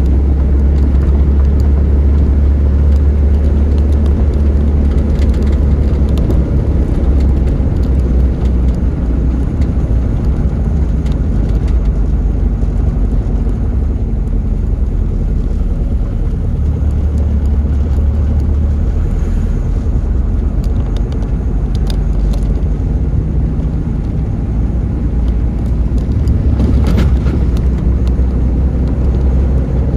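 Steady low rumble of a car driving on a concrete road, heard from inside the cabin: engine and tyre noise.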